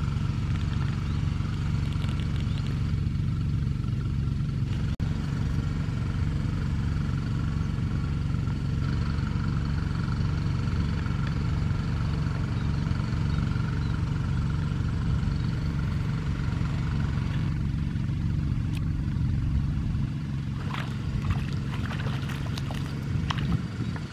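A steady, low engine drone, with a few light clicks and rustles near the end.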